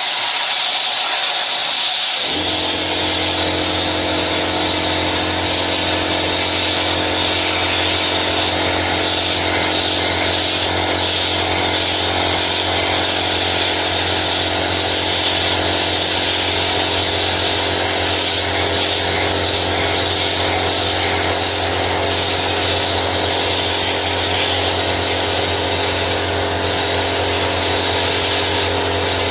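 Parkside PDSP 1000 D5 air sandblasting gun blasting steadily, a loud hiss of compressed air and grit. About two seconds in, the air compressor feeding it starts up and runs with a steady hum underneath.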